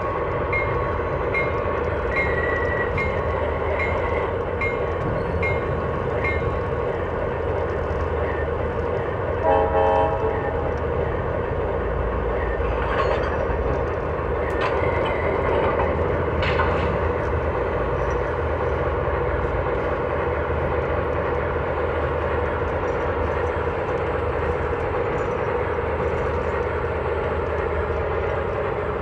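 MTH Alco RS-11 O gauge model diesel's Proto-Sound 3 engine sound running steadily from its onboard speaker. A bell rings about twice a second through the first six seconds, and a short horn blast about nine and a half seconds in is the loudest sound.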